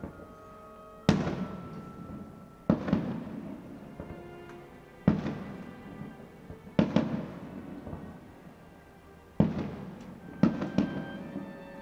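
Aerial firework shells bursting, six sharp bangs one to two and a half seconds apart, each trailing off over about a second.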